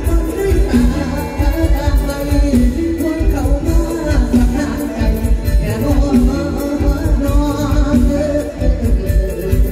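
Live Thai mor lam band music played loud through a stage sound system, with a singer singing into a microphone over a steady beat.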